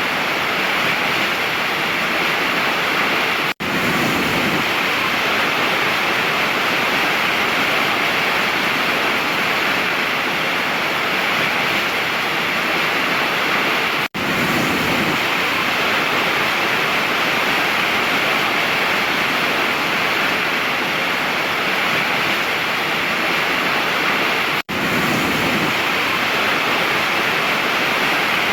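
Steady, loud rushing roar of a large waterfall, broken three times by a split-second drop to silence.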